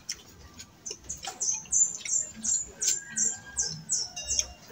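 A bird calling a quick run of about a dozen short, high notes, each falling in pitch, about three a second. The run starts about a second in and stops shortly before the end.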